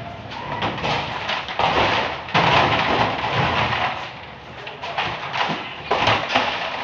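Blue plastic water jugs being handled and stacked in a truck's cargo box: repeated knocks, thumps and scrapes of plastic containers against each other and the truck floor.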